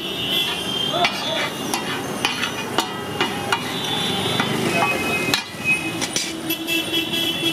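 Metal spatula tapping and scraping on a large flat iron griddle (tawa) in irregular knocks, chopping and stirring egg bhurji, over the steady hiss of the frying eggs.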